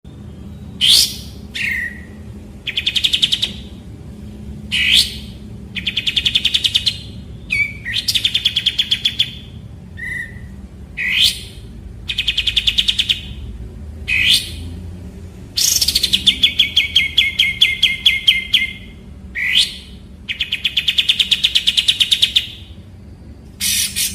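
A kapas tembak, a bulbul, singing: sharp upward-sweeping whistles alternating with fast rattling trills of one to two seconds each, the longest trill about two-thirds of the way through, over a steady low background hum.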